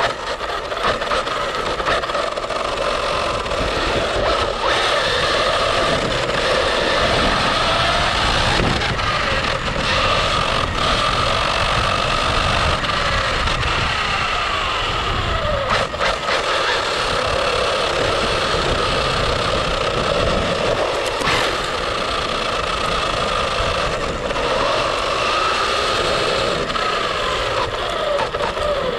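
Radio-controlled cars running hard: a steady high whine from their motors and gearing, gliding up and down in pitch with the throttle, over a rough low noise.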